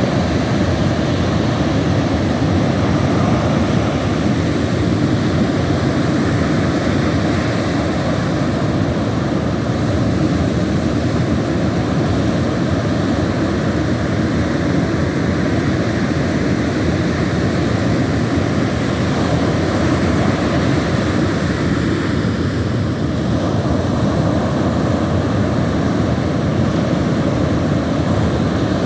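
Ocean surf breaking on a beach: a loud, steady roar of waves with little rise and fall.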